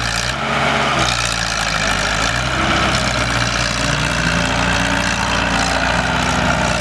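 Heavy diesel engines of a crawler excavator and a ten-wheel dump truck running steadily, with the engine pitch rising and falling in the middle as they work to free the truck stuck in sand.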